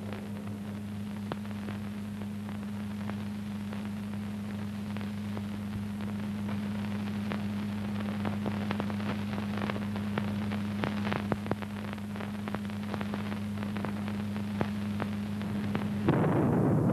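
Steady electrical hum with hiss and scattered crackling clicks, the bare soundtrack of old archival film. About a second before the end, a much louder rushing noise cuts in abruptly.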